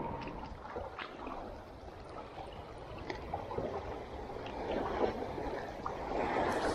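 Shallow lake water sloshing and lapping, with a few faint light clicks.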